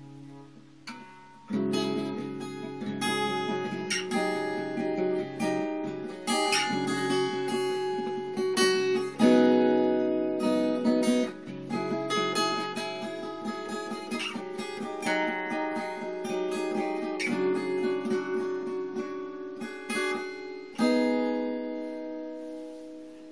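Acoustic guitar playing chords in an instrumental passage of a song. It comes in fully about a second and a half in and eases off near the end.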